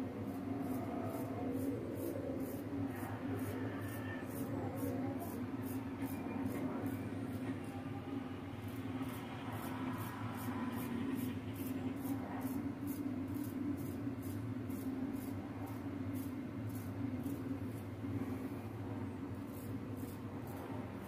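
Straight razor scraping through lathered stubble in short strokes, over a steady low hum.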